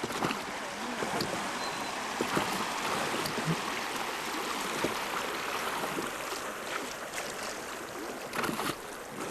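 River water rushing and lapping steadily around a drifting river raft, an even hiss with small splashes, and a few sharper ones near the end.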